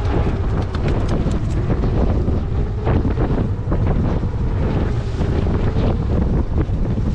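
Wind buffeting the microphone on a fishing boat at sea, over a faint steady hum from the boat and the wash of seawater.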